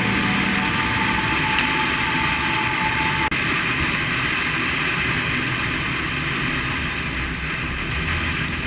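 Airliner noise: a steady rushing of engines and airflow, with a faint held tone that stops about three seconds in.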